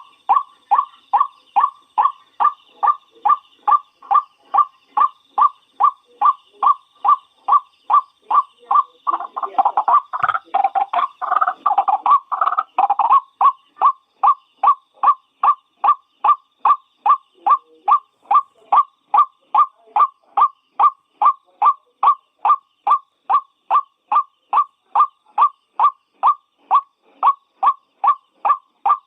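White-breasted waterhen (ruak-ruak) calling over and over, a steady run of short calls at about two a second. For a few seconds, roughly ten seconds in, the calls crowd into a faster, tangled burst before the even rhythm resumes.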